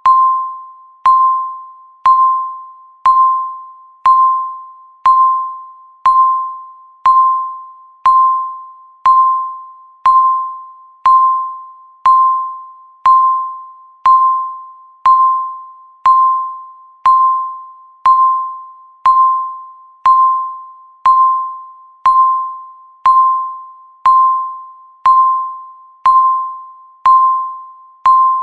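Countdown timer beeps: a single mid-pitched electronic tone struck once every second, each starting sharply and fading away like a chime, marking each second left on the countdown.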